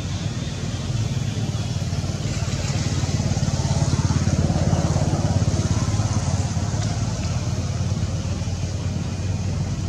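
A motor engine running steadily, a low pulsing rumble that grows a little louder around the middle and then eases back.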